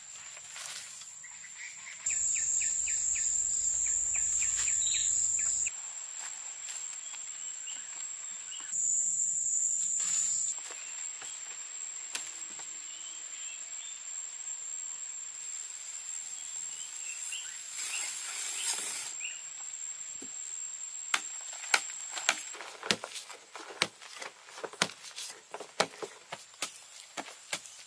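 Outdoor ambience: a steady high insect drone with scattered bird chirps. In the last third, a run of sharp, irregular knocks of a hand tool at work.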